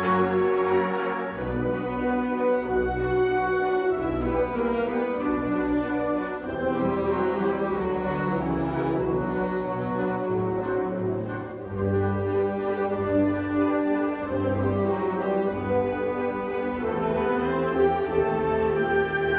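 Concert wind band playing live: brass and woodwinds hold sustained chords that change every second or so over a low bass line.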